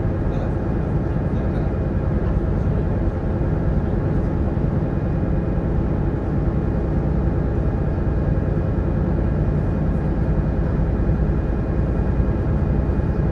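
Sightseeing boat's engine running steadily underway: a constant drone with a rush of noise, unchanging throughout.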